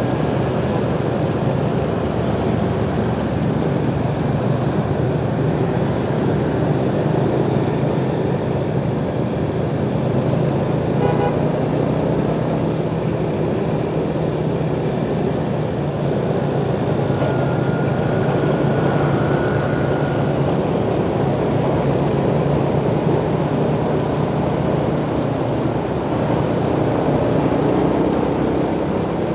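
Motorcycle riding through city traffic: steady engine drone mixed with wind and road noise, with a brief high-pitched tone about eleven seconds in.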